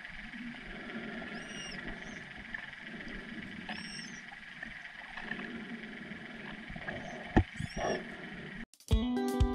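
Florida manatee vocalizations picked up by an underwater camera microphone: a few short, high, arching squeaks a couple of seconds apart over a steady underwater hiss. A few sharp clicks come about seven and a half seconds in. The sound cuts off near the end and guitar music starts.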